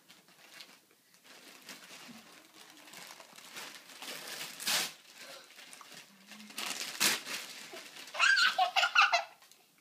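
Christmas wrapping paper being crinkled and torn off a present, with two loud rips around the middle. Near the end a young girl laughs excitedly.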